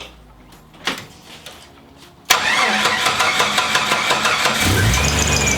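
A freshly rebuilt Jeep Wrangler YJ engine is started. There is a click about a second in, then the starter suddenly begins cranking about two seconds in. After about two more seconds the engine catches into a steady idle, with a whine falling in pitch as it catches. This was a quicker start than the engine's usual slow starting.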